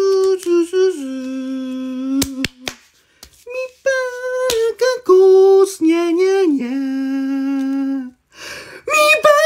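A man's voice singing drawn-out wordless notes: two phrases, each stepping down in pitch and ending on a long, steady low note. A few sharp clicks come between them, about two and a half seconds in.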